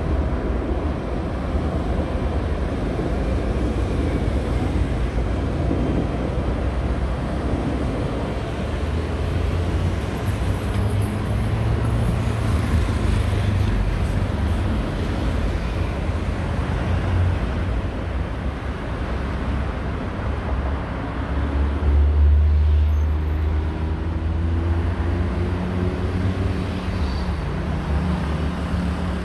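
Steady road traffic: cars driving past on a busy urban road. About two-thirds of the way through, it grows louder as a vehicle passes with its engine rising in pitch as it accelerates.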